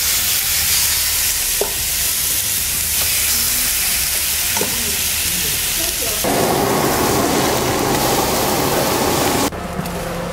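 Seasoned pork chops sizzling in a hot grill pan on a gas burner, a steady frying hiss that gets louder and fuller about six seconds in. Near the end it cuts off suddenly to quieter sound with a faint steady tone.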